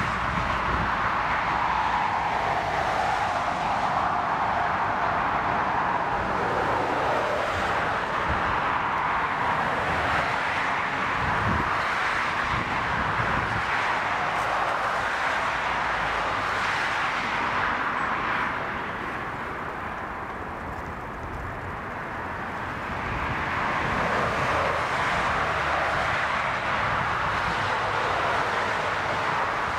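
Airbus A330's twin turbofan engines, a steady jet roar during the landing rollout. It fades somewhat for a few seconds past the middle, then builds again.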